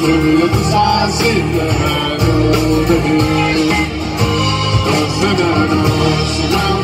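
Live band playing: strummed acoustic guitar and electric guitar over a steady drum beat, with a man singing.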